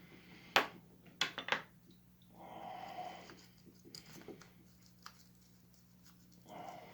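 Sharp clicks and taps of small tools and plastic model-train parts being handled on a workbench, with a soft rustle between them, over a steady low electrical hum.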